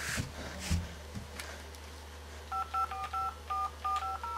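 Touch-tone keypad of a handheld phone being dialled: a quick run of about ten two-tone key beeps, one per key press, starting about halfway through. A low bump of handling noise comes just under a second in.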